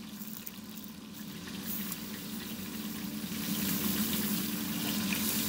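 Sizzling hiss that builds from about a second and a half in as pumpkin waffle batter is poured onto the hot waffle iron, over a steady low hum.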